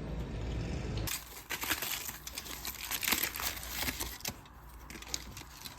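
Plastic food wrapper crinkling and tearing as it is handled and opened, a dense run of sharp crackles. It begins about a second in, after a steady low rumble that stops abruptly.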